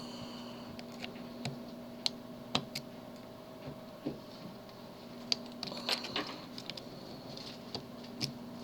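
Faint, irregular metal clicks and light scrapes of a pick pressing down the pins of a tubular lock held under tension, with a short flurry of ticks about six seconds in.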